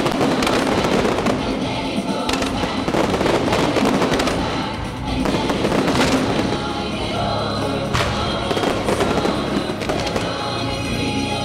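Fireworks banging and crackling, several sharp cracks spread through, over loud live pop music with a choir of singers.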